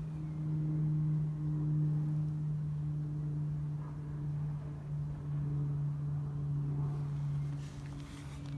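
A steady low hum from a machine or engine, with a fainter overtone, dropping slightly in pitch about five seconds in.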